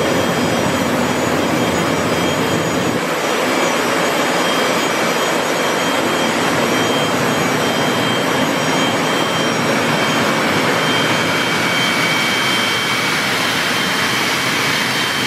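GE LM2500 aeroderivative gas turbine running at low power while warming up: a steady, dense rush of air with a high, steady whine over it, and a second, lower whine coming in partway through.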